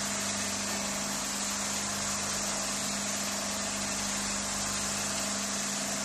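ATC CNC wood router spindle running with a steady hum while its cutter mills a pocket in a thick wood panel, under an even hiss of cutting.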